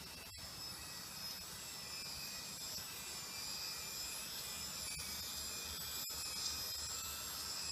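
Small electric drive motor and gearbox of an RC CAT tandem roller whining steadily as it drives along, growing a little louder as it comes closer.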